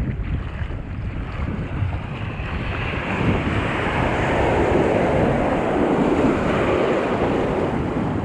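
Ocean surf washing in on the shore, one wave building about three seconds in and rushing through, with wind buffeting the microphone throughout.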